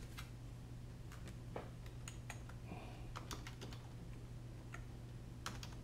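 Computer keyboard being typed on: scattered, irregular key taps as numbers are entered and tabbed between cells, over a steady low hum.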